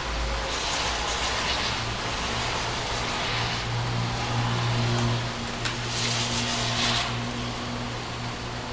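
Cars passing on a rain-wet street: tyre hiss swells twice, about half a second in and again around six seconds, over a steady low engine hum and the hiss of rain.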